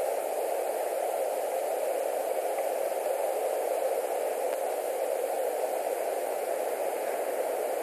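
Steady, even hiss of background noise on a nest webcam's audio feed, strongest in the mid range and unchanging throughout.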